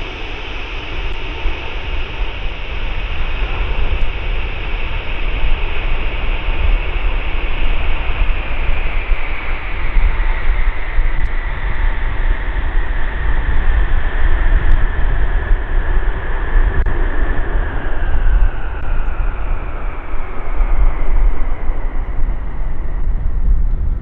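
Boeing E-3A Sentry AWACS jet with four turbofan engines running on approach: a high engine whine that slides slowly down in pitch while the overall noise grows louder, over a heavy rumble. Gusty wind buffets the microphone.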